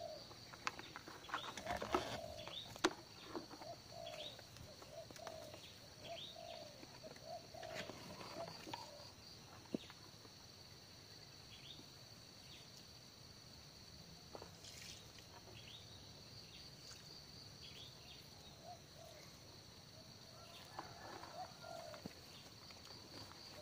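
Birds chirping and calling over a steady high-pitched drone, with a few sharp knocks in the first few seconds.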